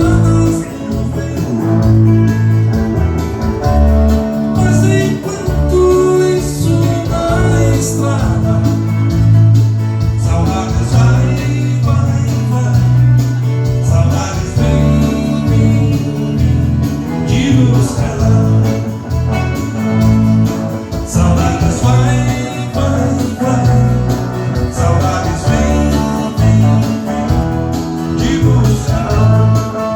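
A band playing dance music, with a singer over guitar, bass and a steady beat.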